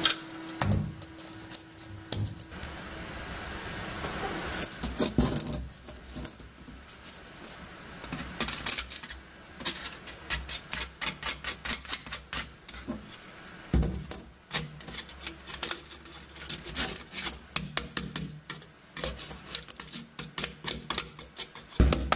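Rapid, irregular light metal taps and scrapes as a flat-bladed tool and a small hammer work at the liner band and rivets inside a rusty steel M35 helmet shell.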